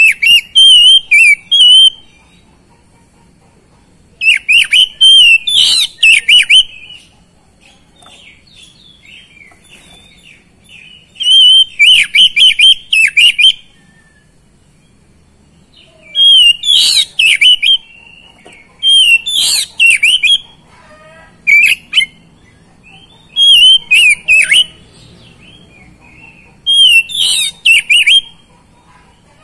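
Oriental magpie-robin singing in repeated loud bursts of rapid, wavering whistles and warbles, each phrase a second or two long, with short pauses between.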